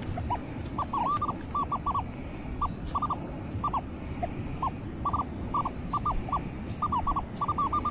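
Minelab Manticore metal detector giving short electronic beeps of slightly varying pitch, singly and in quick clusters, as the coil is swept back and forth over a target. The jumpy tones match an erratic target reading that wanders between the 30s and 50s.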